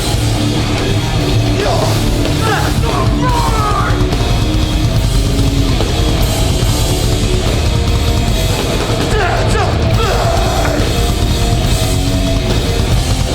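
A hardcore band playing live at full volume: distorted guitars, bass and drums, with shouted vocals in places.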